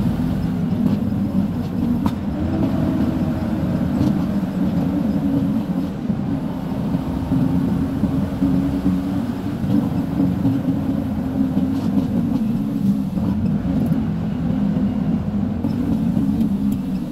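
Truck engine running steadily while driving, heard from inside the cab as a continuous low hum with road noise.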